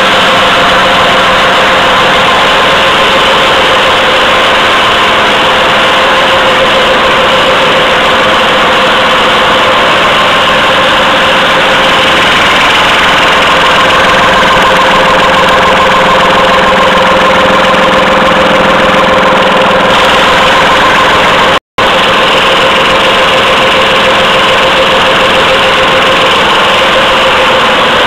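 Automatic pocket tissue machine running steadily: a dense, loud mechanical noise with a steady whine held throughout. The sound breaks off for a split second about three-quarters of the way through.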